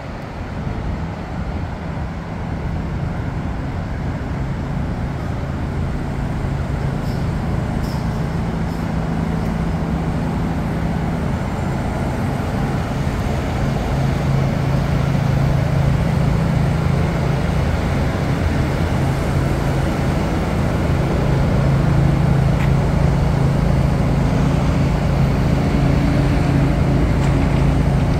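Downtown road traffic: a steady drone of passing cars with a low engine hum that grows louder through the second half.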